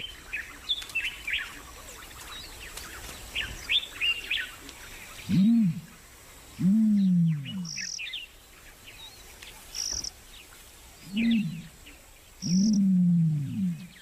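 Small birds chirping in quick, high twitters, with a few short squeaks. Four low calls that rise then fall in pitch stand out above them, the first two about halfway through and two more near the end.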